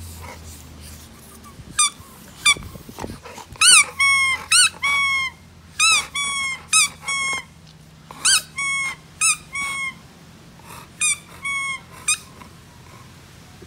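Young Dogue de Bordeaux (French Mastiff) whining in a run of short, high-pitched cries, some rising and falling and some held briefly, in bursts with short pauses between them: the puppy is impatient for its toy to be thrown.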